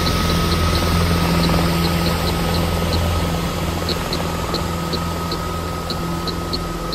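A steady, engine-like mechanical drone with a low hum and a thin steady high tone, overlaid by light irregular ticks a few times a second.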